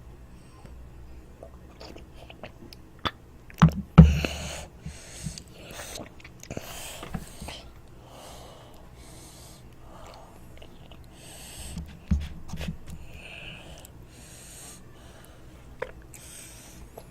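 A child chewing toast close to the microphone: repeated wet mouth sounds and small clicks, with breaths between. Loud low knocks come twice around four seconds in and again about twelve seconds in.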